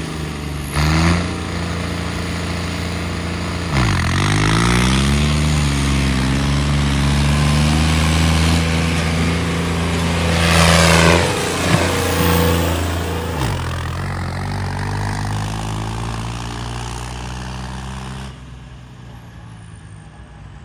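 Diesel tractor engines at full throttle in a drag race. The engine note dips and climbs back up about 4 s in and again around 12–13 s, as the tractors change gear or load. Near the end the engine sound drops away abruptly.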